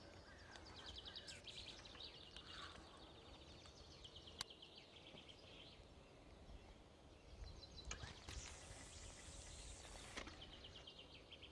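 Near silence outdoors with faint birdsong trills, a single faint click about four seconds in, and a soft hiss lasting about two seconds near the end.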